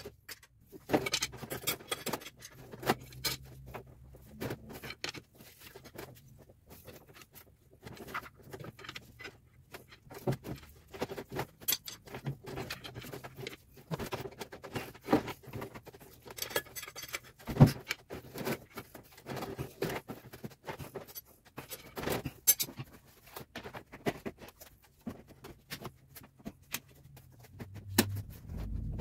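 Irregular clinks, taps and knocks of metal hand tools and parts being handled while the fan shroud and fan are refitted in an engine bay, with one sharper knock in the middle.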